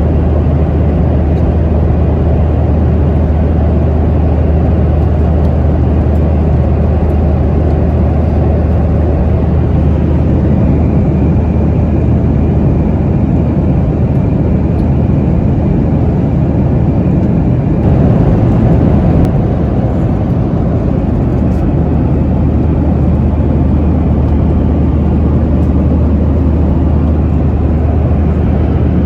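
Steady in-cabin drone of a Boeing 737-900ER in flight: its CFM56-7B jet engines and the airflow make a constant low hum under an even rush, swelling slightly about eighteen seconds in.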